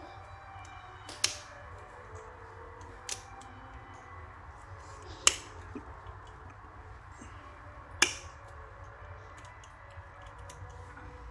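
Sharp, isolated clicks from small tools and wire being handled during soldering work: three loud ones a few seconds apart and a fainter one between the first two.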